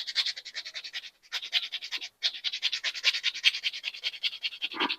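Emery paper being rubbed by hand on a metal part in rapid back-and-forth strokes, about eight to ten a second, with two short pauses in the first half. The part is being sanded smooth and roughed up.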